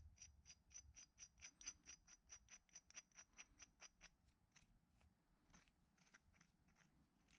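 Faint, quick metallic clicking as a threaded jaw adjustment screw is turned by hand in a brass steady rest jaw, about five clicks a second, thinning to scattered clicks about halfway through.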